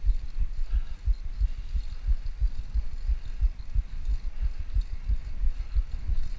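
Wind buffeting an action camera's microphone on a moving bicycle: irregular low thumps, several a second, over a faint hiss.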